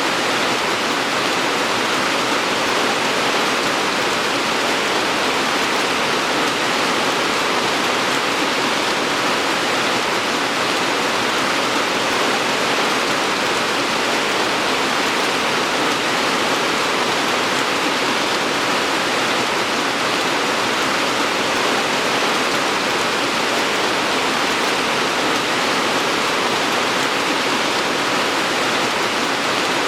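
Steady rain falling, an even, unbroken hiss with no breaks or single loud drops.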